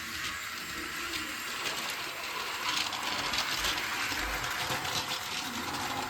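Battery-powered Centy toy train running: a dense, rapid mechanical clicking and rattling of its small motor gearbox and wheels, a little louder in the middle.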